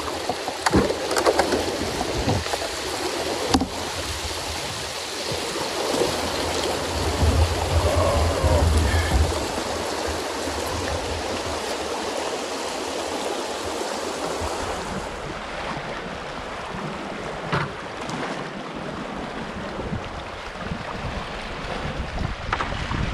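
Shallow river rapids rushing steadily around a canoe, with a few sharp knocks scattered through, most of them in the first few seconds.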